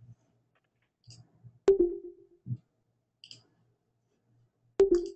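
Two sharp knocks about three seconds apart, each with a short low ring after it, and faint scattered clicks between them.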